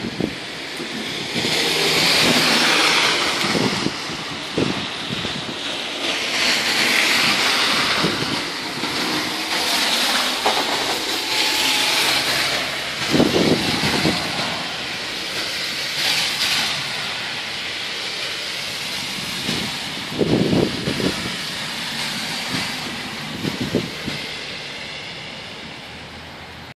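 Road traffic on slushy, snow-covered streets: a continuous tyre hiss that swells and fades as vehicles pass, with a few short, louder low rumbles, getting quieter near the end.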